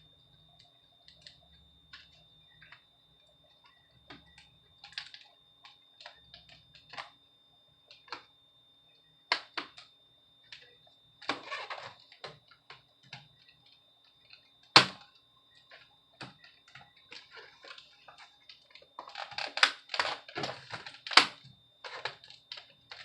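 HP Pavilion laptop keyboard being worked loose from its retaining hooks: scattered plastic clicks and taps, a sharp snap about fifteen seconds in, and a denser run of clicking near the end.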